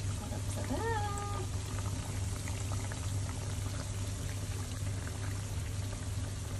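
Banana pieces deep-frying in hot oil with brown sugar, the oil bubbling and sizzling steadily over a low hum. A brief rising vocal sound comes about a second in.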